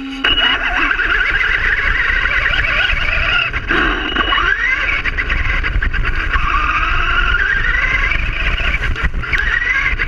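Traxxas Rustler RC truck's electric motor and gears whining as it drives, the pitch wavering up and down with the throttle, dipping and climbing again about four seconds in, over the rumble of its tyres on grass and pavement.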